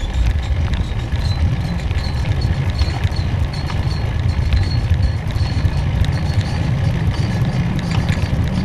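Wind rumbling on the microphone with road noise from riding quickly along a paved road, a steady low rumble with faint scattered ticks.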